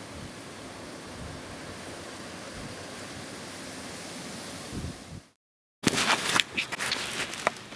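A steady rushing hiss, like wind, that fades out about five seconds in; after a brief silence, a run of sharp, irregular crunches and clicks begins.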